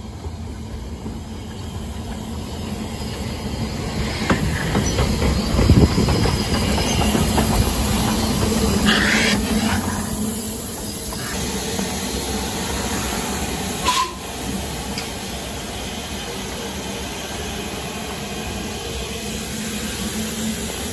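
Narrow-gauge steam locomotive moving slowly along the platform, steam hissing from its cylinder drain cocks over the rumble of its wheels on the rails. The sound swells as it draws near, with a brief high squeal about nine seconds in and a sharp clank near fourteen seconds.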